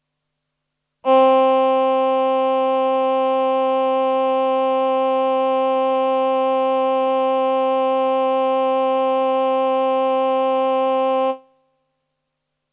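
Roland VP-330 Vocoder Plus synthesizer playing its male human-voice choir preset: one steady held note that begins about a second in, lasts about ten seconds, and stops with a brief fading tail.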